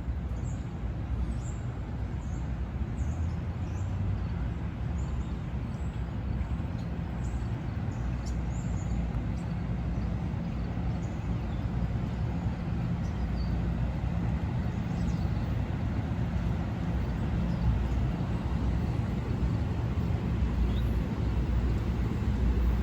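A train running by on the Northeast Corridor tracks: a steady low rumble with faint high chirps over it.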